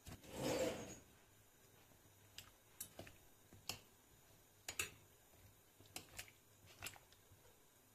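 A cauliflower floret drops into a stainless steel pot of water, then a metal fork clicks sharply against the pot, about ten irregular clinks, as it pushes the florets down.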